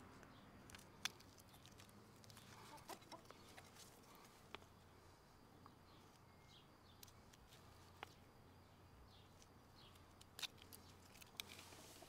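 Small scissors of a Victorinox Huntsman Swiss Army knife snipping duct tape: a handful of faint, sharp clicks, spaced a second or more apart, against a near-silent background.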